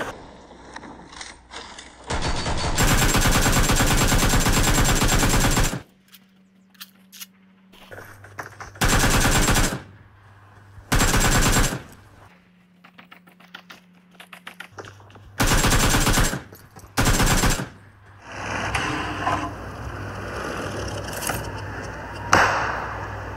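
Automatic gunfire from mobile shooter gameplay: several bursts, the longest about three seconds, with shorter bursts of about a second later on and quieter game ambience between them.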